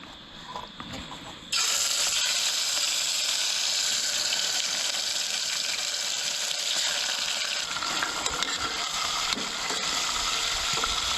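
Trout fillets going into a hot pan: a steady frying sizzle starts suddenly about a second and a half in and keeps on.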